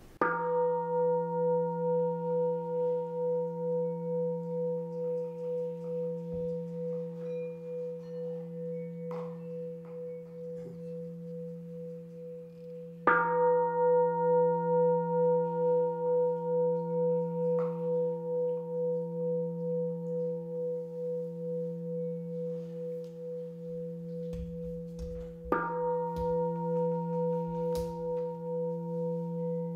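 Singing bowl struck three times, about twelve seconds apart. Each strike rings on for a long time as a low hum with a higher, gently wavering tone above it.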